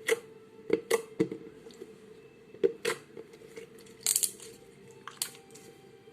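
Slime being squeezed and played with by hand, giving sharp, irregular clicks and pops, about eight of them.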